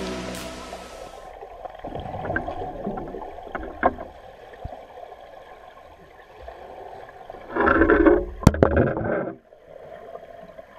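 Background music fades out, leaving the muffled rush and gurgle of water picked up by a GoPro held underwater in a swimming pool. About three-quarters of the way through there is a louder surge of water noise with a single sharp click, then it drops back to a quieter rush.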